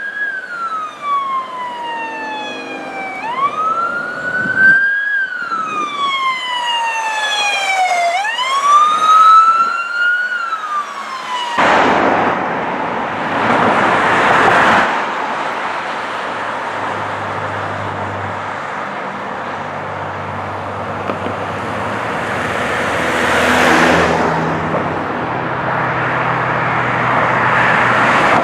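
Electronic police siren sounding a slow wail, rising and falling about every three seconds. About twelve seconds in it gives way to a loud rushing road noise with two louder swells and a low steady engine hum.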